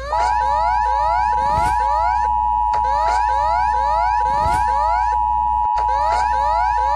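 Emergency alert system alarm: a steady two-tone attention signal held under a stream of quick, repeating rising sweeps, with a brief dropout partway through.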